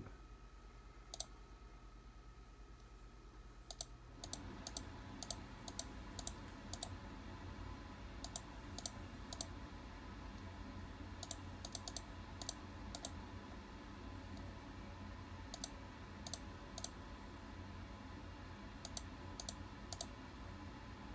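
Computer mouse clicking to turn e-book pages: short sharp clicks at irregular spacing, often in quick pairs or runs. A faint steady background hum comes up about four seconds in.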